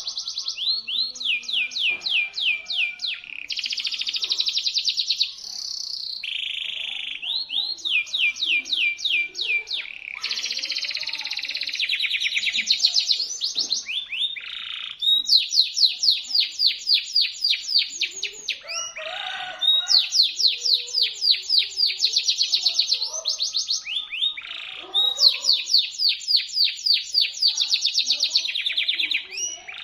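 Domestic canary singing shrill, fast trills: long rolls of rapidly repeated sweeping notes, one phrase after another with brief breaks between them.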